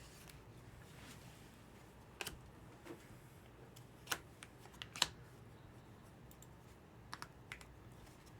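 A few scattered light clicks and taps over quiet room tone, spaced irregularly with the clearest ones a couple of seconds apart.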